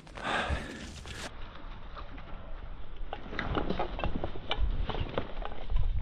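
Footsteps crunching on snow-covered rocks while dry cattail reeds rustle and crackle as someone pushes through them: an irregular run of small sharp crackles, with a few low bumps near the end.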